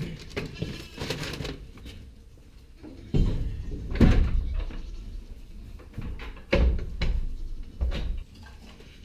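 A series of dull knocks and thumps with a low rumble, about five of them from three seconds in, like something being bumped or handled close to the microphone.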